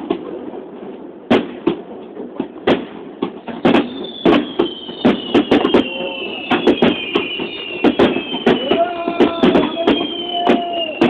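Fireworks display: sharp bangs of shells bursting at an irregular pace, coming thicker from about four seconds in, with high whistles slowly falling in pitch over them in the second half. Crowd voices are underneath.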